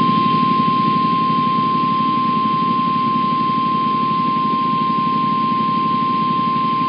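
NOAA Weather Radio 1050 Hz warning alarm tone: a single steady high tone held without a break, over a constant buzzy radio hiss. The tone signals that a severe weather warning message is about to be read.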